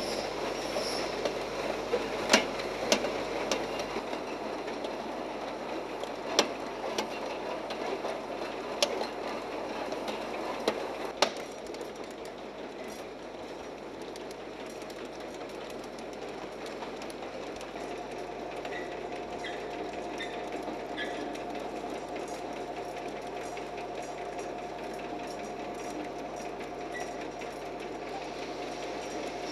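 Automatic aerosol can filling line running: a steady mechanical clatter of machinery and cans. Sharp metallic clacks ring out through the first third, and a steady whine joins about two-thirds of the way through.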